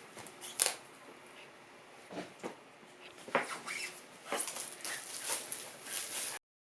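Crinkling and scratching of packaging as a sealed trading-card box is unwrapped and opened by hand, in a run of short uneven strokes that grow busier in the second half. The sound cuts off suddenly near the end.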